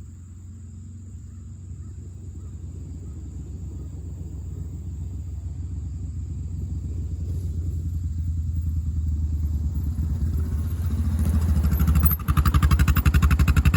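Engine of a small vehicle running steadily and growing louder as it comes closer, then much louder near the end.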